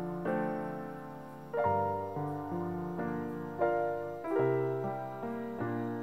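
Gentle solo piano music: notes and chords struck every half-second to second, each left to ring and fade.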